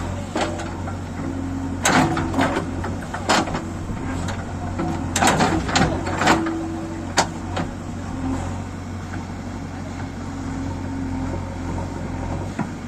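JCB 3DX backhoe loader's diesel engine running steadily, with sharp metallic clanks and knocks from the working digger, bunched between about two and seven seconds in.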